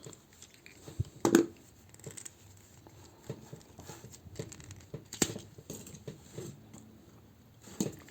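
Plastic toy figure parts being handled and worked apart: light clicks, scrapes and rattles, with sharper knocks about a second in, around five seconds in and near the end.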